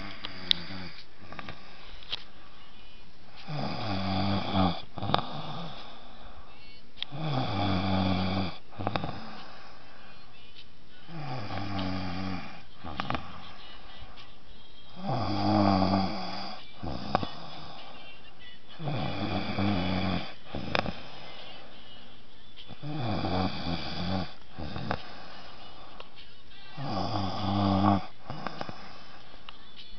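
A man snoring in sleep, one drawn-out buzzing snore about every four seconds, seven in all. Between snores there are a few short, sharp clicks.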